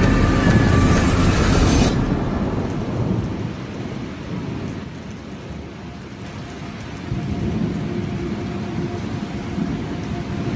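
Steady rumbling noise with a rain-like hiss that cuts off abruptly about two seconds in, leaving a quieter low rumble; faint held tones come in about seven seconds in.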